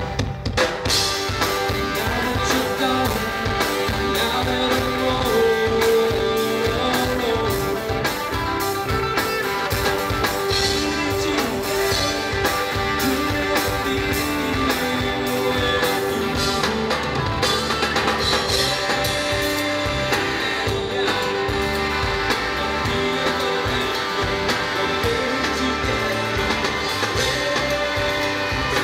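Live rock band playing: a drum kit keeping a steady beat under a strummed acoustic guitar and an electric guitar played through a Marshall amplifier.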